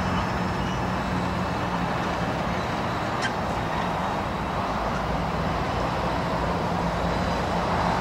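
Road traffic running with a steady low engine hum, and a single sharp click about three seconds in.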